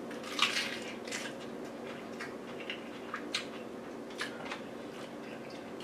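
A person biting into and chewing a crisp lettuce-leaf wrap: a few short crunches, loudest in the first second or so, then sparser chewing crackles over a faint steady hum.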